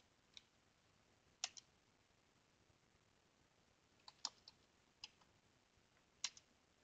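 Sparse computer keyboard keystrokes: about nine short clicks, alone or in quick pairs, over a quiet room background as a terminal command is typed.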